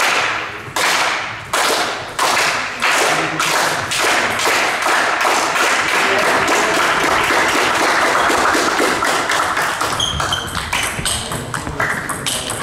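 Repeated sharp taps and knocks, each ringing on in a large echoing hall. They come about one every 0.7 s at first, then thicken into a dense, continuous clatter through the middle.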